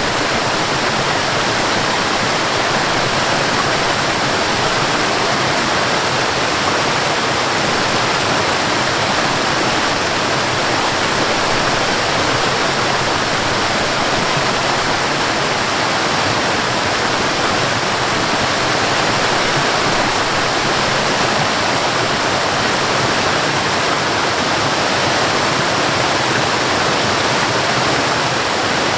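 Waterfall: a loud, steady rush of falling water that never lets up.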